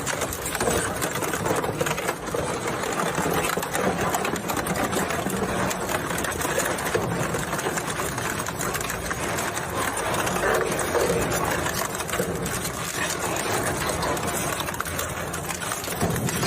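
Plastic shredder machine running steadily, its motor and cutters making a dense, continuous rattle.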